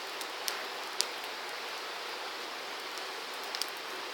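Small wood fire crackling: a few sharp pops, the loudest about a second in, over a steady hiss.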